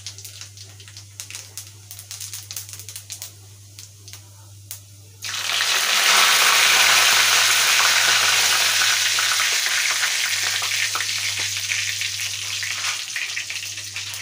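Hot oil in a kadhai crackling lightly, then, about five seconds in, a sudden loud sizzle as boiled potato chunks go into it. The sizzle carries on and slowly settles as they fry.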